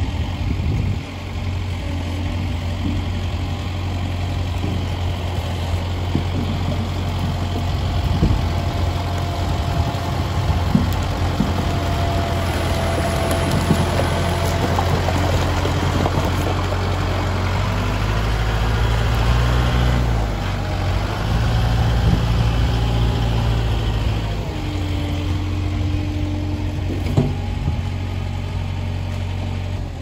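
Kubota tractor's diesel engine running steadily, its note rising and shifting for a few seconds past the middle as it works the loader with logs, with a few knocks.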